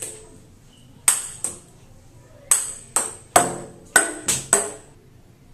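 A series of about eight sharp, irregular strikes, each with a short high ringing that quickly dies away; they come in small clusters, densest in the second half.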